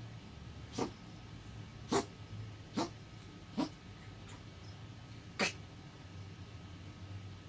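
A pet coughing: five short, sharp coughs over about five seconds, the first four about a second apart and the last after a longer gap.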